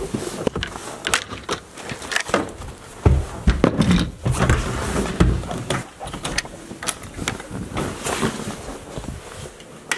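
Handling noise from a handheld camera being carried by someone walking: rustling, footsteps and scattered clicks and knocks as doors are opened and passed through, with heavier thumps about three to five seconds in.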